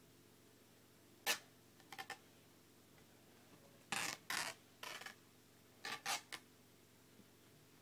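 Hockey tape being pulled off the roll and wrapped around a hockey stick's shaft, heard as a string of brief, sharp noises in small clusters, the loudest about a second in.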